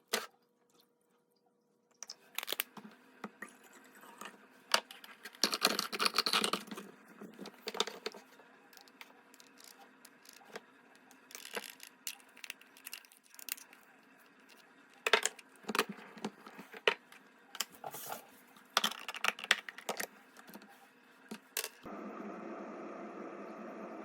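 Scattered clicks, knocks and rustling from handling a Mr. Coffee machine and its parts, then about 22 seconds in the machine starts running with a steady noise.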